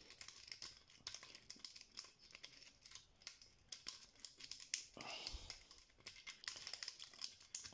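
Faint, irregular metallic clicks and scratches of a double half diamond pick probing the sliders inside a slider lock cylinder, held under tension with a tension wrench while feeling for a binding slider.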